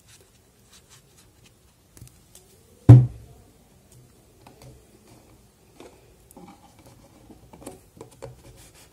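Hands handling craft materials on a tabletop: one loud knock about three seconds in as something is set down, then soft taps and rustles of fingers pressing a foam (EVA) letter onto a paper-card cube box.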